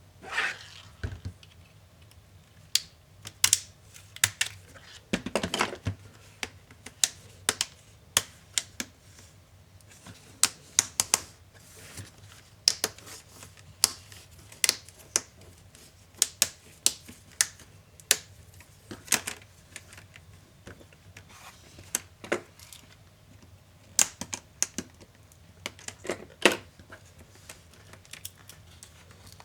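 Irregular sharp clicks and taps of small tools, screws and plastic parts being handled while a laptop is taken apart.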